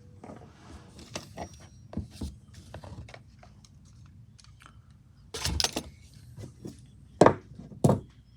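Small parts of a chainsaw's top handle being handled and fitted: a run of light clicks and rattles, a short clattering rattle about five and a half seconds in, and two sharp clicks near the end.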